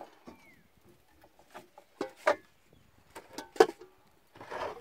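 Scattered knocks and clatter of a metal cooking pot being lifted and set down on a wooden table, the sharpest knock about three and a half seconds in. A short falling chirp near the start.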